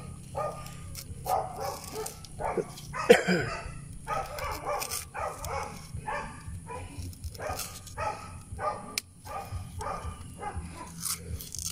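A dog barking over and over, about two barks a second, with one louder bark about three seconds in.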